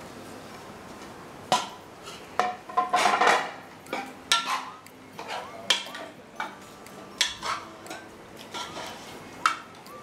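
Metal spoon stirring in a non-stick frying pan, with irregular clinks and scrapes against the pan, starting about a second and a half in.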